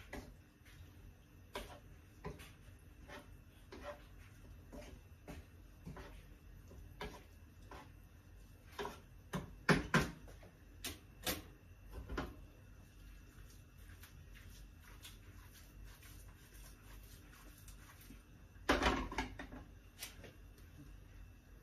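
Wooden spoon stirring pasta in a creamy sauce in a non-stick frying pan, with scattered light knocks of spoon on pan and a few louder ones about ten seconds in. Near the end there is a louder clatter as the pan is lifted off the gas burner's grate.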